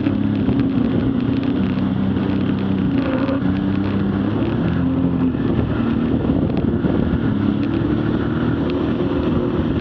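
Personal watercraft (jet ski) engine running at cruising speed, its pitch dipping and climbing again as the throttle eases and opens. Water rushes and splashes against the hull underneath.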